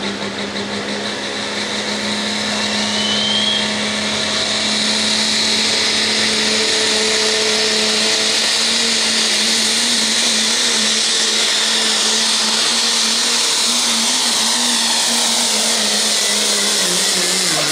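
Turbocharged pro stock diesel pulling truck (a Dodge Ram) at full throttle, hauling a weight-transfer sled. The engine and a high turbocharger whistle build over the first few seconds, then hold steady and loud through the pull.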